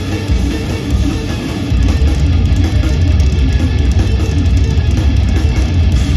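Instrumental progressive metal played live by a band of two eight-string electric guitars and a drum kit: a loud, bass-heavy run of rapid guitar notes over drums, growing fuller and louder about two seconds in.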